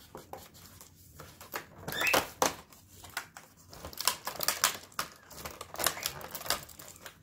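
Cardboard advent calendar being handled: irregular crinkling, rustling and sharp clicks of the card, busier from about two seconds in, as its small doors are pulled at.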